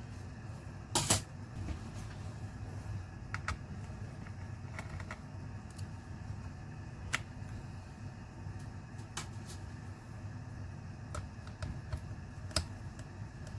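Scattered small clicks and taps of tools and laptop parts being handled during disassembly, with a louder double clack about a second in, over a steady low hum.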